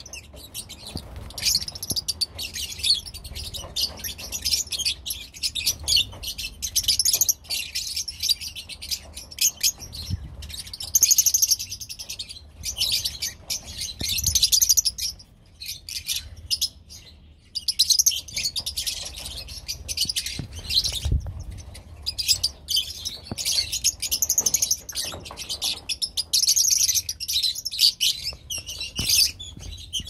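A flock of lovebirds, mostly Fischer's lovebirds, chattering together in a constant high-pitched twittering, with a brief lull a little past the middle.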